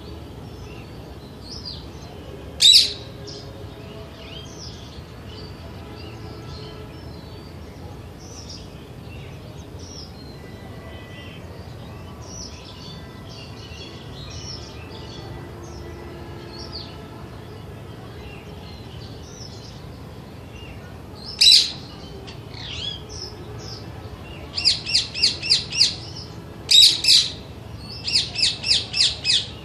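Green parakeet screeching: a loud single squawk about three seconds in and another about twenty-one seconds in, then quick runs of five or six sharp screeches in a row near the end. Faint chirping of small birds goes on underneath.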